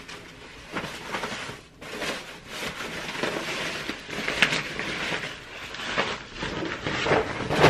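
Plastic protective wrap crinkling and rustling as it is pulled off a new iMac, with irregular crackles throughout.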